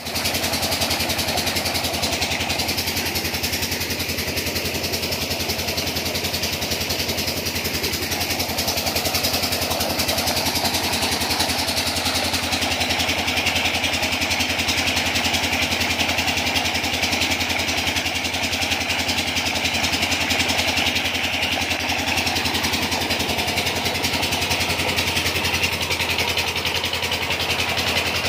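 Old diesel engine running steadily, driving a water pump, with the pumped water gushing from the outlet pipe and splashing into a tank.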